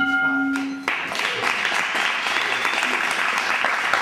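Applause from a group of people, starting about a second in, right after a steady pitched tone cuts off.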